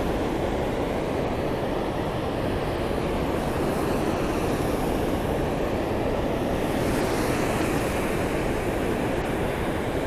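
Steady rush of river water pouring over a low concrete dam.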